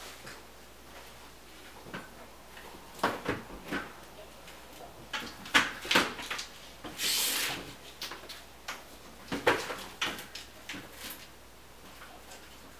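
Scattered knocks, clicks and clatter of things being handled, in several small clusters, with a short scraping or hissing noise a little past halfway.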